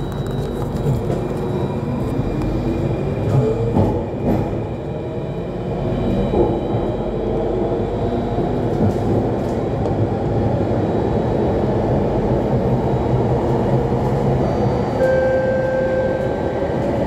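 Alstom Metropolis C830 metro train running through a tunnel, heard from inside the car: a steady rumble of wheels on rail under traction-motor whines that rise in pitch over the first several seconds as it picks up speed. A steady higher tone comes in near the end.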